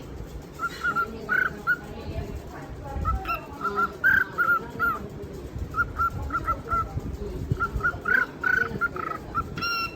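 Pet birds giving short, repeated honking calls in quick runs of several a second, with brief pauses between runs, as if calling back and forth.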